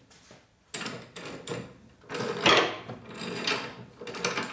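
Toothed rubber drive belt of a Harley-Davidson touring bike rubbing and scraping against its pulley as it is worked into place by hand, in several irregular bursts, loudest about halfway through.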